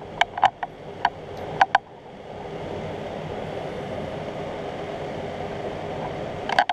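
Canedy-Otto drill press running steadily on its first power-up after being rewired, an even, quiet hum: it runs really quiet and sounds healthy. A few sharp clicks come in the first couple of seconds.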